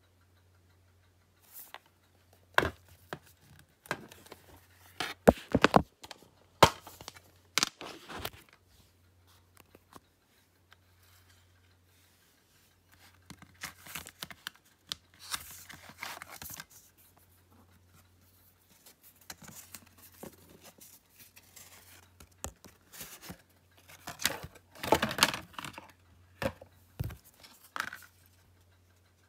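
Blu-ray packaging and disc cases being handled: irregular clicks, knocks and rustling or tearing of plastic and card, in several flurries with a lull just before the middle.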